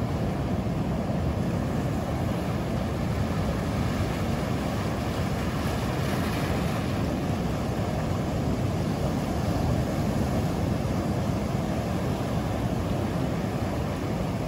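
Ocean surf breaking on a beach, a steady, deep rush of noise that swells slightly about six seconds in.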